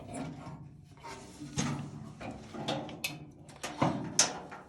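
Metal parts of an early-1900s wick heater rattling and clunking as it is opened up, with several sharp clicks, the loudest near the end.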